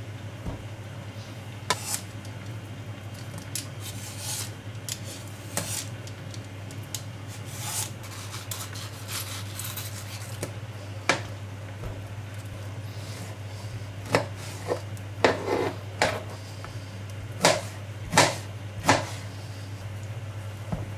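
Kitchen knife cutting mango on a plastic cutting board: scattered taps and scrapes of the blade against the board, with a quicker run of sharper knocks in the last several seconds.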